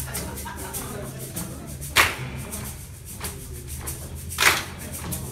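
Sharp percussion hits twice, about two and a half seconds apart, over a low steady hum as a song gets under way.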